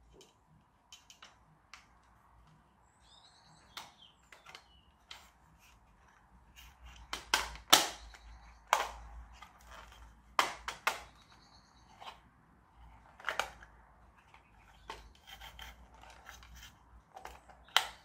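Irregular sharp clicks and snaps of small plastic parts of a 1:16 scale radio-controlled tractor being handled and worked on, with a cluster of louder snaps in the middle. A bird chirps faintly a few seconds in.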